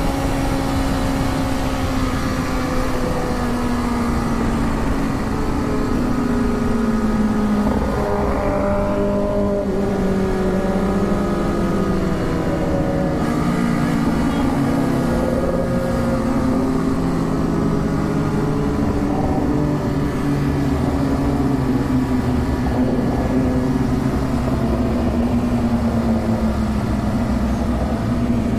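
Superbike engine running under way at fairly steady revs. Its pitch sinks slowly over the first several seconds, then rises and falls gently without hard revving.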